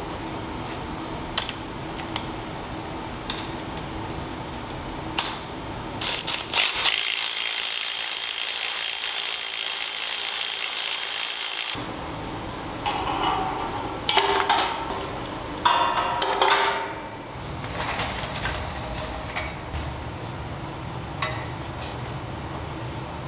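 Steel tubing and clamps handled on a steel fixture welding table: scattered sharp clicks and metal clanks as parts are laid out and locking C-clamps are set, with a cluster of clanks and rattles past the middle. A loud steady hiss runs for about six seconds before that.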